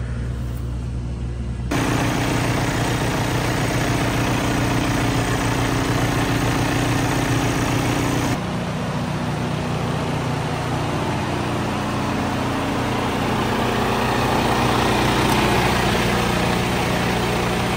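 Heavy truck engine idling steadily, in three stretches joined by abrupt cuts about two seconds in and about eight seconds in.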